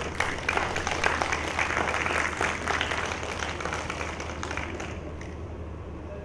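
Audience applauding, the clapping thinning and fading out about five seconds in.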